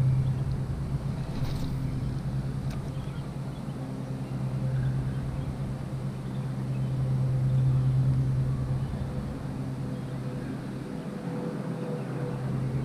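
A steady low engine drone that grows louder toward about two-thirds of the way through and then eases off.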